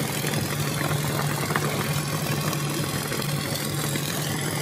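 Puffing snack production line machinery running steadily: a constant low hum under a broad, even machine noise.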